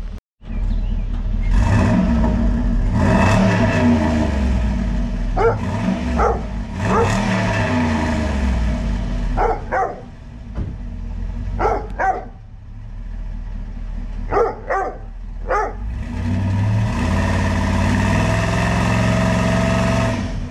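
Turbocharged GMC Sierra 2500HD V8 on its stock exhaust, heard at the tailpipe, revved from idle several times. There are a few longer revs that rise and fall, quick short blips in the middle, and a longer held rev near the end.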